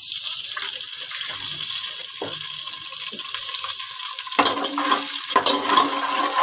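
Solid ghee sizzling with a steady hiss as it melts in a hot aluminium pot, stirred by a metal slotted spoon; the stirring and scraping against the pot get louder from about four seconds in.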